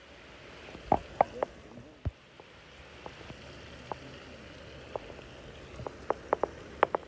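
Chicken frying in oil on a tawa griddle, a steady sizzle with sharp pops and spatters that come more often near the end.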